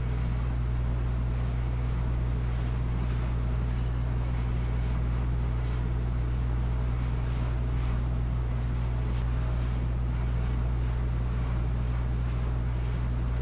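A steady low electrical hum with an even hiss over it.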